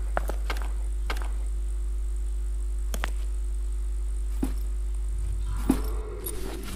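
Steady low electrical hum with a few scattered sharp clicks, and a short gliding tone near the end; the hum drops in level about six seconds in.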